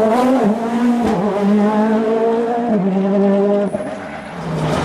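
Rally car engine pulling hard away from a hairpin, its note jumping up and down through gear changes and fading as the car drives off about four seconds in. A second rally car's engine, lower in pitch, comes in near the end.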